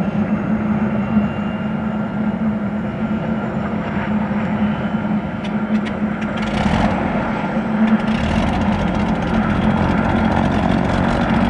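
Sikorsky S-92A helicopter running on the ground with its rotors turning: the steady whine of its twin General Electric CT7 turboshaft engines over a steady low rotor hum. The sound grows louder from about eight seconds in.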